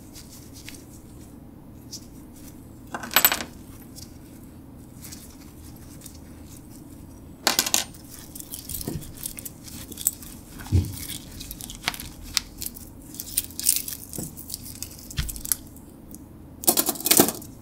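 Metal watch parts, the stainless case, bezel and bracelet, clinking and jangling as they are handled and dried in a microfiber towel, with the cloth rubbing. The clinks come in short bursts, most often in the second half, with the loudest cluster near the end.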